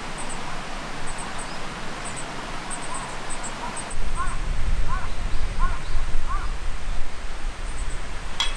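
Riverside outdoor ambience: a steady rush of flowing river water, with a bird calling repeatedly in short rising-and-falling notes and faint high chirps above. A heavier low rumble comes in about halfway through, and a single sharp click sounds near the end.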